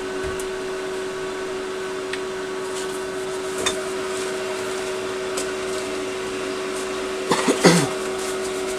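Steady machine hum with several constant tones, with a few light ticks, and a short clatter with a brief squeak near the end as parts are handled.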